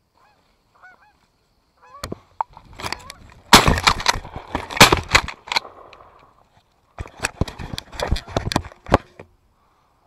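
Geese honking overhead, then two loud blasts from a Mossberg Maverick pump shotgun fired at them about a second and a half apart, followed by a quick run of sharp knocks and rustles.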